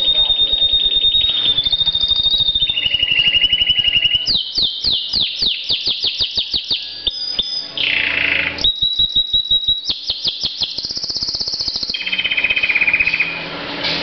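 Pet canary singing a long song of rapid trills, each a run of quickly repeated notes held at one pitch, switching between higher and lower rolls. In the middle comes a series of quick falling notes and one long downward whistle before the trills resume.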